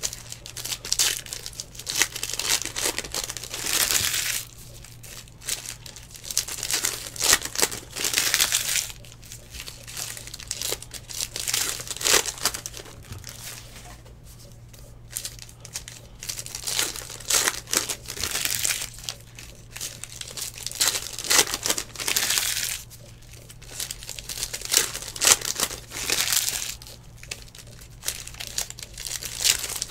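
Plastic trading-card pack wrappers crinkling in irregular bursts as the packs are opened and handled.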